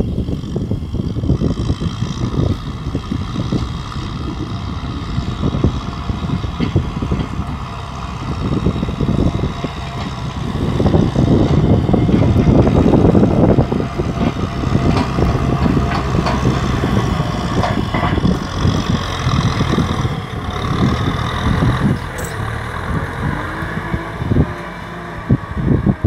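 Kubota M6040 SU tractor's four-cylinder diesel engine running under load while it pulls a disc plough through dry field soil. It is loudest about halfway through as the tractor passes close.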